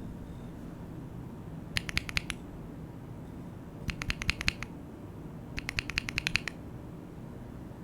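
Typing on a foam-modded TKL mechanical keyboard with lubed and filmed Gateron yellow linear switches, as a keycap sound test: three short bursts of quick keystrokes, each about half a second to a second long, with pauses between them.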